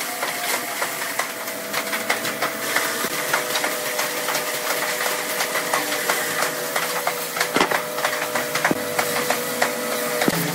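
Electric twin-spindle drilling machine running with a steady whine as its bits bore into a wooden cable-reel flange, with frequent clicks and knocks of wood. The whine stops abruptly near the end.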